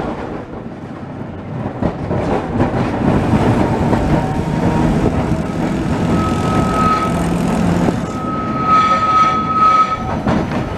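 Heritage tram running along street track, heard from on board: a steady rumble of wheels on rail, with a low hum in the middle and a thin high whine held for a few seconds in the second half.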